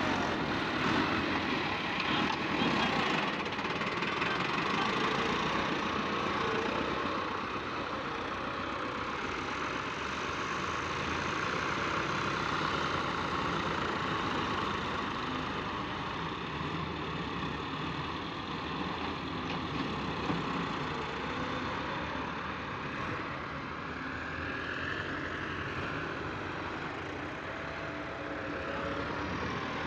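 Diesel tractor engines running steadily: a Massey Ferguson 385 working its front-end loader in loose soil, with other tractors running alongside. Slightly louder for the first several seconds, then even.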